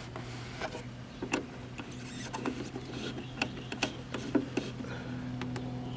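Scattered light clicks and rubbing of small metal parts being handled on a tube radio chassis, over a steady low hum.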